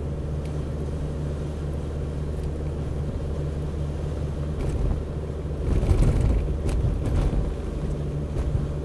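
Car engine and road noise heard from inside the cabin while driving: a steady low hum that swells into a louder rumble about six seconds in.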